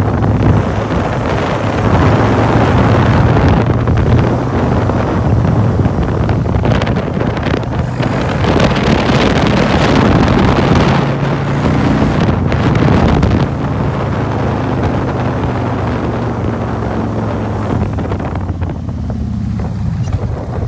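Motorcycle engine running steadily while riding, with heavy wind noise on the microphone; the wind eases near the end.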